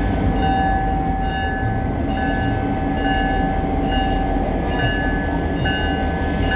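EMD GP38-2 diesel locomotive running, its 16-cylinder two-stroke engine steady and heavy, with the locomotive bell ringing evenly a little more than once a second.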